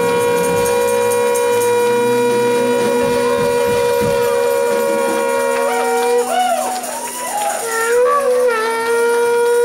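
Shofar blown in one long steady blast for about six seconds, then a few short wavering notes that bend up and down, and a second long blast that rises into a held note near the end.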